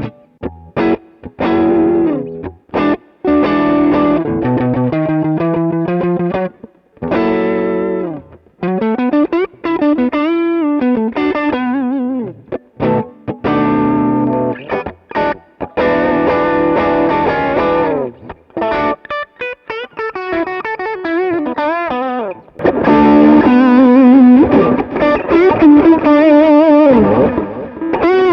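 Overdriven electric guitar, a 1990s Giannini Stratosonic with Fender Custom Shop pickups, heard direct through the Sonicake Sonic IR's amp-cabinet impulse-response simulation. It plays chords and lead phrases with short breaks, string bends and wide vibrato, loudest near the end.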